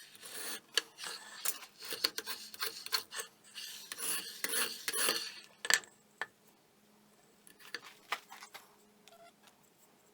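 Workshop hand-work: scraping and rubbing with sharp metallic clinks, as of tools being worked and set down on a workbench, in irregular bursts for about six seconds, then a few faint clicks.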